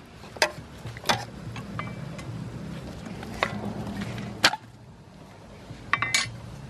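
Metal ladle knocking and clinking against the side of an aluminium cooking pot as frog soup is stirred: several separate sharp knocks, the loudest about four and a half seconds in, and a quick double clink near the end, over a steady low hum.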